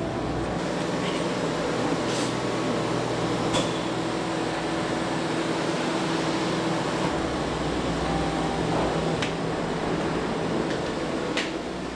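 Steady mechanical hum and whir of the cable car station's drive machinery as gondolas run through the terminal, with a few short sharp clicks and knocks.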